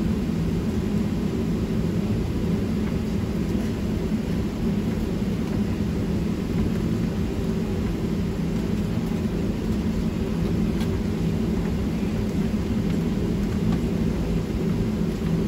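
Steady low rumble and hum of a Boeing 737-900 airliner's cabin, with the aircraft's systems running before takeoff.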